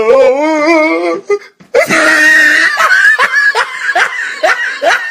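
Hearty human laughter in quick repeated ha's, about three or four a second, after a drawn-out wavering vocal note at the start.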